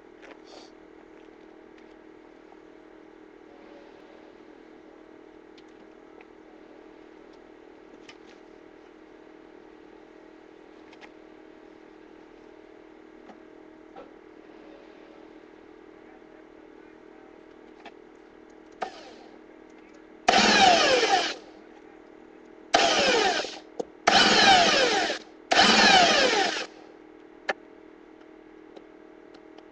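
A power drill run in four short bursts of about a second each, starting about twenty seconds in, the pitch dropping through each burst: holes being drilled into the smart fortwo's frame for a bike rack mount. Before the drilling there is only a steady low hum.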